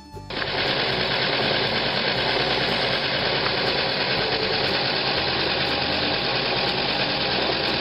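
Bachmann K-27 model steam locomotive running on blocks, with its Phoenix sound system playing steam locomotive sound through the onboard speaker: a loud, steady rushing hiss that starts suddenly a moment in.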